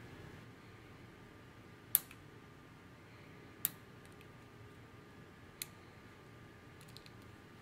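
Three sharp, separate plastic clicks, a second or two apart, then a few faint ticks near the end, from a MacBook Pro keyboard keycap and its scissor mechanism being handled.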